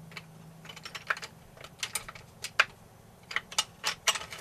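Coloured pencils clicking and tapping against one another as they are handled, in a quick irregular run of light clicks.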